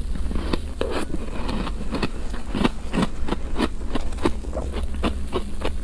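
Close-miked chewing of a mouthful of frozen powdery ice: crisp crunches in a quick, even run, about three a second.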